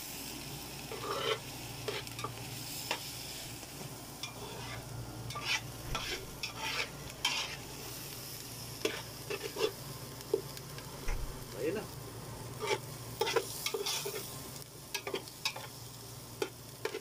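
Chopped onions and green onions sizzling in a little oil in an aluminium pot while a metal spoon stirs them, scraping and tapping against the pot at irregular moments.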